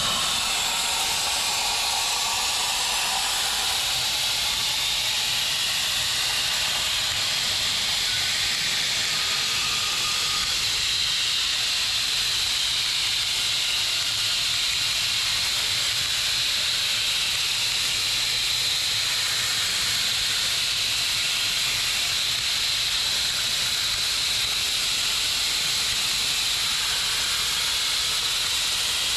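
CNC plasma cutter's torch cutting through metal plate: a steady hiss with a high-pitched edge that holds at an even level.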